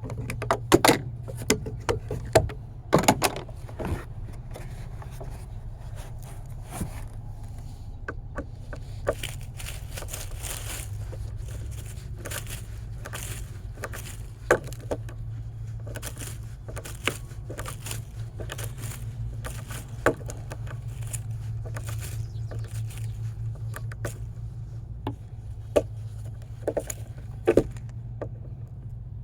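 Screws being driven into wood: scraping and creaking with scattered sharp clicks and knocks, over a steady low hum.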